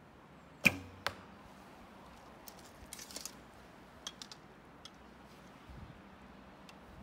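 A traditional Kaiser bow loosing an arrow: one sharp, loud crack of the string at release, then a second, quieter knock about half a second later as the arrow strikes the target. Small clicks and rustles follow as the bow and the next arrow are handled.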